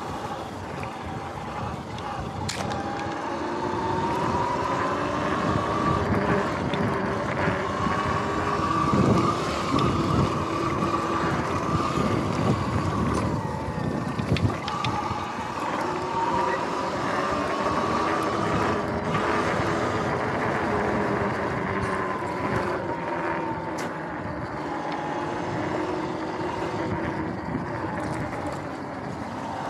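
Sur-Ron Light Bee X electric dirt bike's motor whining as it rides, the pitch rising and falling with speed, over the rumble of its tyres on grass, with a few sharp knocks along the way.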